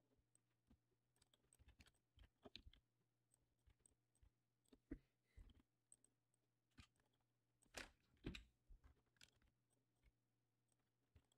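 Faint, irregular clicking of a computer mouse and keyboard keys, a few louder clicks about eight seconds in, over a faint steady hum.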